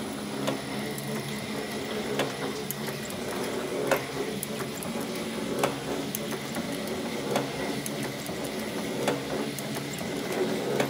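SAS Condor soap stamper running under test after a full overhaul: a steady motor and drive hum, with a sharp clack repeating evenly about every second and three-quarters as the machine cycles.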